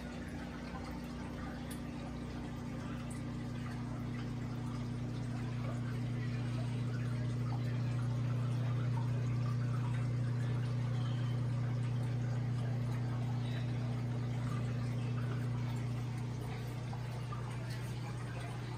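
Saltwater reef aquarium running: a steady low pump hum with water trickling and gurgling over it. The hum grows louder through the middle and eases off near the end.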